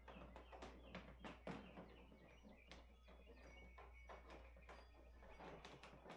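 Faint, scattered taps and clicks of hands handling small parts and tools during a kayak wiring install, over a steady low hum.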